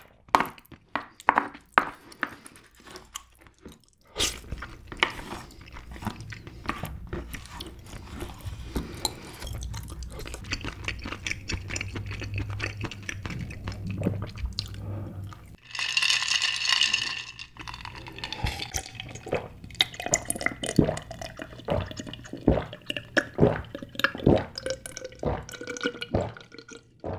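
Close-miked eating sounds: a wooden spoon scraping and clicking inside a king crab's shell, and wet slurping and chewing of the soupy crab meat. There is a loud wet slurp about two thirds of the way through, and sips and gulps of an iced drink from a glass jar near the end.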